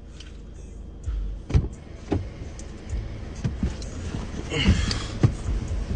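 A few knocks and a brief rustle inside a car, over a low steady rumble.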